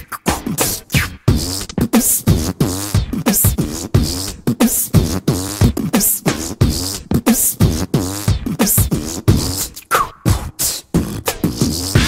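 Background music: a beatboxing passage of a hip-hop track, with mouth-made kicks, snares and hi-hat clicks in a quick, steady rhythm.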